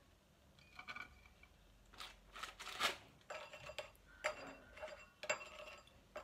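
Faint clinks and taps of a small bowl and a glass baking dish as biscuits are dipped in milk and laid in the dish, with a brief rustle a little under three seconds in.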